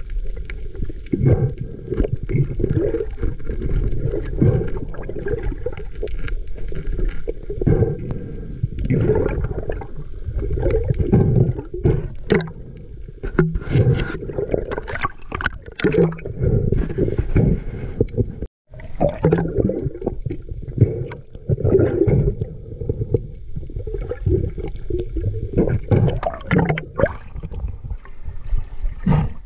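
Water heard through an action camera's waterproof housing underwater: muffled sloshing and gurgling bubbles, with irregular surges and a few sharper crackles. There is a brief dropout about two-thirds of the way through.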